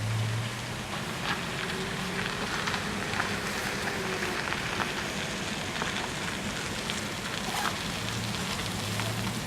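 Steady rain-like hiss with scattered small clicks like drops, under a low hum that fades after the first second and comes back near the end.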